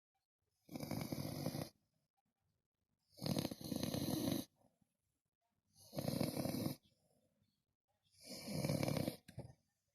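French bulldog snoring: four snores, each about a second long, coming roughly every two and a half seconds.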